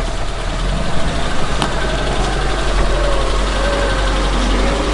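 Small off-road 4x4's engine running at low revs as it crawls slowly over a rough forest trail: a steady low rumble with a wavering mid-pitched tone, and one sharp click about a second and a half in.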